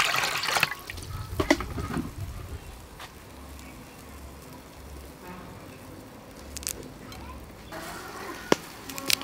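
Water poured from a plastic scoop splashing into a stainless steel basin for about the first second. It is followed by quieter handling sounds with a few light clicks.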